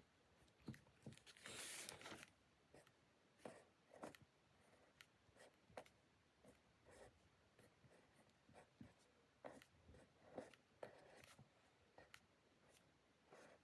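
Faint sounds of writing on paper at a desk: scattered short scratches and taps, with one longer, louder scratch about two seconds in.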